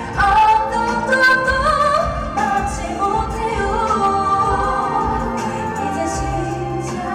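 Female K-pop girl group singing into handheld microphones over a backing track, with long held notes in the melody.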